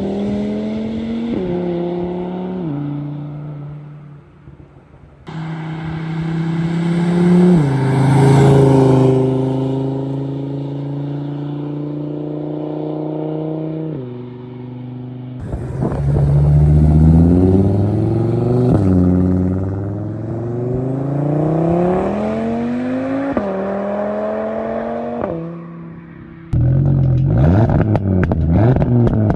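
Audi RS3's turbocharged 2.5-litre five-cylinder, fitted with a big-turbo Stage 3 kit, 5-inch intake and 4-inch turbo-back exhaust, accelerating hard: the engine note climbs in pitch and drops back at each gear change, over several short clips joined by abrupt cuts. In the last few seconds a rapid crackling runs over the engine note.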